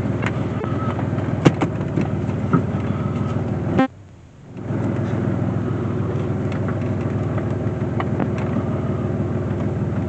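Chevy Blazer ZR2's 4.3-litre V6 engine running steadily as the truck pulls away under its own power after a fuel pump replacement. The sound cuts out briefly about four seconds in, then resumes.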